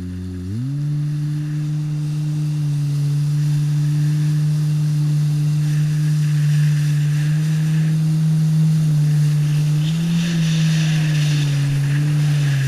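Yamaha FX SHO WaveRunner's engine revving up sharply about half a second in, then held steady at high throttle as the jet ski runs across open water. The engine note lifts briefly and dips near the end, under a rushing hiss of wind and spray that grows in the last few seconds.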